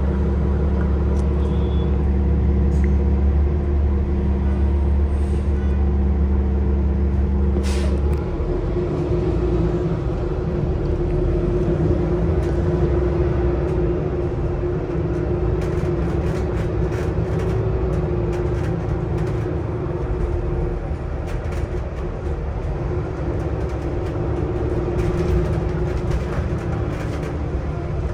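Cummins L9 inline-six diesel and ZF Ecolife automatic transmission of a 2022 Nova LFS transit bus, heard from inside the cabin. A steady low drone runs for about eight seconds; then a brief hiss comes and the engine sound turns rougher, with a wavering whine above it.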